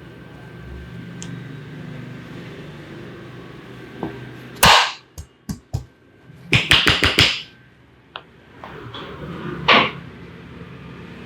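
Sharp slaps and claps of a barber's hands striking during an Indian head massage: one loud slap, a few quick cracks, a rapid run of about five slaps in the middle, and one more loud slap near the end, over a low steady hum.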